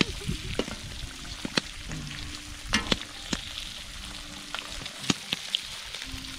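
Bacon frying in a big pan over a wood fire: a steady sizzle broken by frequent sharp pops and crackles.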